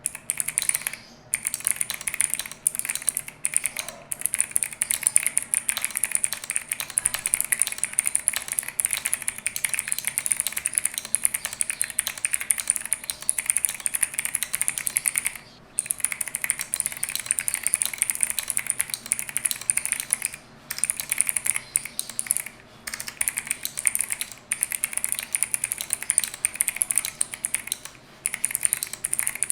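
Fast typing on a mechanical keyboard with Akko Creamy Cyan clicky switches, a Monsgeek M1 V3 with cherry-profile PBT double-shot keycaps: a dense, steady stream of sharp clicks, with a few brief pauses.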